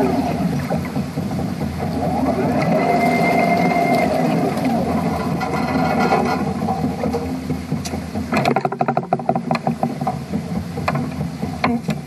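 Electric trash-skimming catamaran at work: a steady motor hum with churning water, and a brief whine about three seconds in. From about eight seconds in, its plastic modular conveyor belt clatters with quick, even clicks as it turns.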